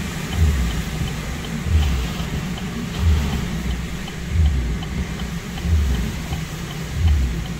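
Hurricane Helene's wind and rain as a steady, loud rush, with vehicle noise underneath and a low thump repeating about every second and a quarter.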